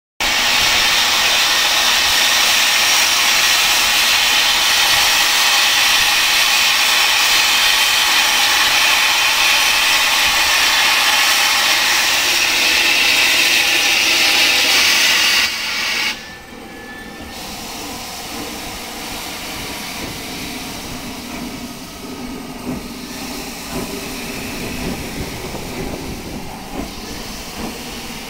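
LNER B12 4-6-0 steam locomotive blowing off a loud, steady hiss of steam that cuts off suddenly about halfway through. After that, the quieter sound of the locomotive moving off slowly.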